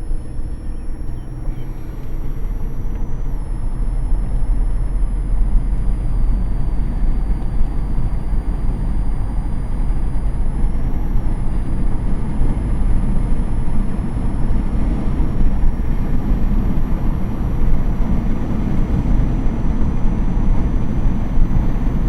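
Road and engine noise inside a moving car, a steady low rumble that grows louder over the first few seconds and then holds.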